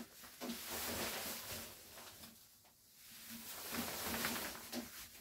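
Frogg Toggs rain poncho rustling as the wearer moves and turns in it, in two bouts of a second or two each.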